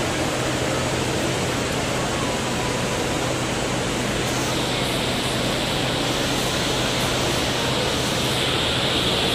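Heavy rain falling, a loud, steady hiss that drowns out everything else; about four and a half seconds in the hiss gets sharper and stronger.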